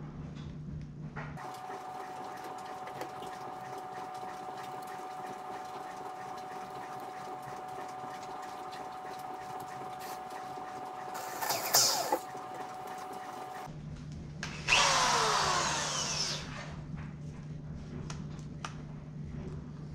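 Electric drill fitted with a hole saw, triggered twice without load: a short whir about halfway through, then a louder run of about two seconds that winds down in falling pitch.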